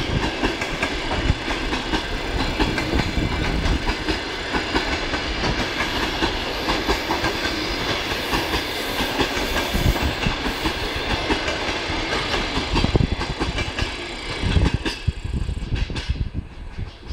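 Passenger railway coaches rolling past, with steel wheels clattering over the rail joints. The clatter thins out and fades near the end as the last coach goes by.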